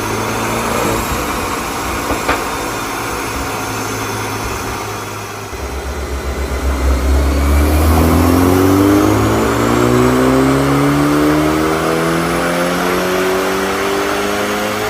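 BMW Z4 20i's 2.0-litre turbocharged four-cylinder running at a steady low speed, with one sharp crack about two seconds in. After about five seconds it comes on load with a deep, pulsing rumble, then its pitch climbs steadily through the rest as it accelerates in a dyno pull.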